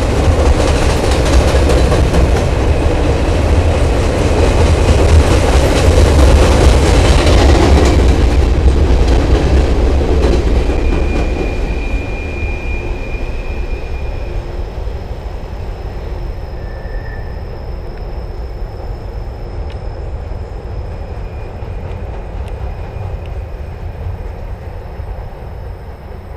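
Norfolk Southern coal train's hopper cars rolling over a steel girder railway bridge: a heavy rumble and clatter of the wheels, loudest for the first eight seconds or so and then fading steadily as the cars move away. Brief high wheel squeals sound now and then.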